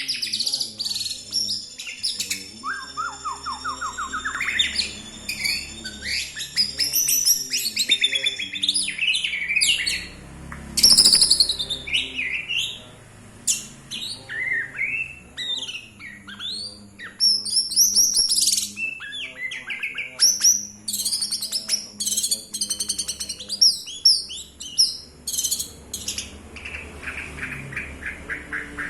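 White-rumped shama (murai batu) singing a long, varied song of clear whistles, sliding notes and fast trills. It ends with a rapid string of repeated notes.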